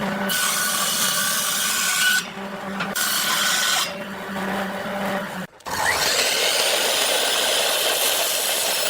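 A handheld power tool working wood. A steady motor hum with loud rasping noise as the tool bites in, twice, then a sudden stop about five and a half seconds in, followed by a longer unbroken run.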